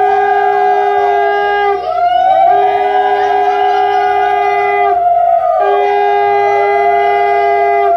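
Conch shells (shankha) blown in long, steady, loud notes that start suddenly, with short breaks for breath about two seconds and five seconds in. Other tones slide up and down over the held notes.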